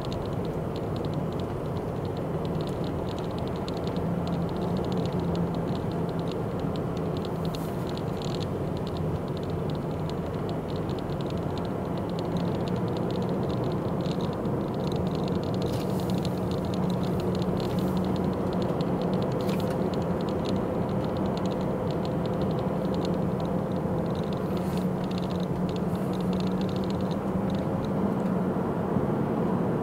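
Car interior noise while driving: a steady engine hum and tyre noise heard from inside the cabin, rising slightly toward the end, with occasional light rattles.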